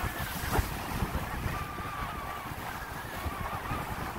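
Wind buffeting the microphone and water rushing along the hull of a Hunter 356 sailboat under sail, with a faint wavering whistle above it. A short knock comes about half a second in.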